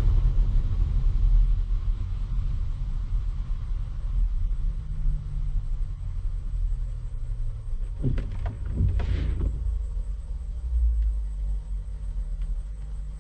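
Steady low rumble of a vehicle moving along the road, heard from on board. A brief, noisier rush of sound comes about eight to nine and a half seconds in.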